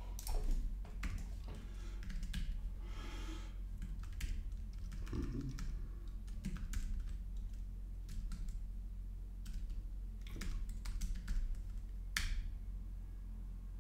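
Typing on a computer keyboard: irregular runs of key clicks, with a steady low hum underneath.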